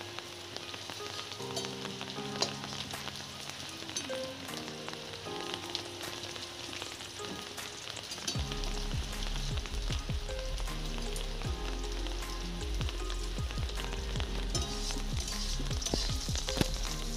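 Food sizzling in hot oil in a steel wok, with the clicks and scrapes of a spatula stirring it, over background music.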